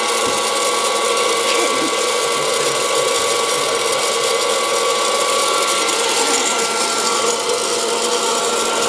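Presto PopLite hot-air popcorn popper running: a steady fan-motor whir with a dense rattle of kernels being blown around the heating chamber, before any popping starts.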